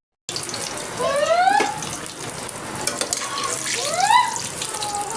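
Water running from a kitchen tap, with rising tones about a second in and again near four seconds.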